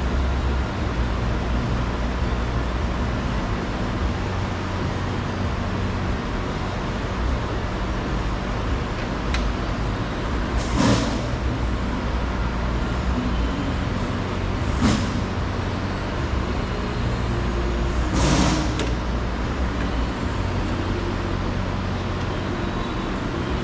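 Steady low background rumble, with a few short clicks and rattles spaced several seconds apart as a car's exterior door handle and latch are worked loose.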